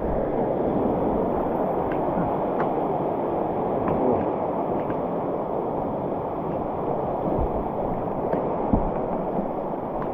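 Whitewater rapids rushing steadily around a kayak, with a few faint soft knocks.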